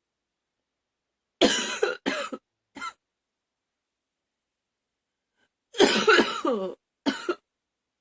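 A woman coughing roughly in two short bouts of several coughs each, the first about a second and a half in and the second near six seconds.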